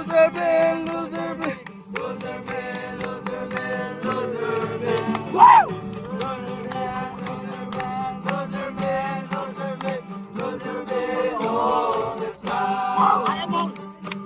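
A song with singing over a steady drone and a regular beat.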